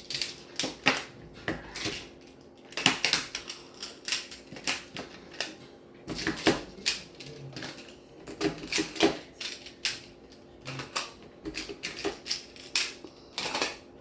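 Plastic magnetic building tiles clicking and clacking together as they are picked up and snapped into place, a run of irregular sharp clicks.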